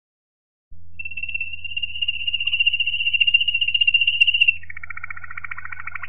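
Waterslager (Malinois) canary singing: a fast, high trill starts about a second in and grows louder for some three and a half seconds, then drops suddenly into a lower, rolling trill. A faint low hum runs underneath.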